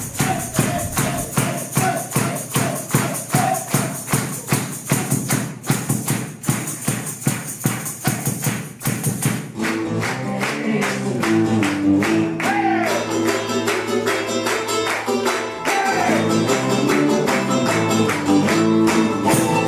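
Music with a steady, even percussion beat; about ten seconds in, melodic instruments with sustained notes join it.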